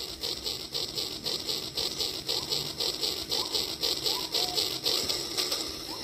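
Battery-powered toy train running along its plastic track, with a rapid, even mechanical rhythm of about four beats a second. A couple of short whistled calls come in about four seconds in.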